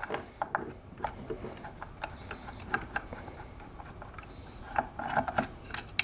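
Manual Phillips screwdriver working screws in a hoverboard's metal frame: irregular small metallic clicks and ticks, with a quick cluster of clicks about five seconds in.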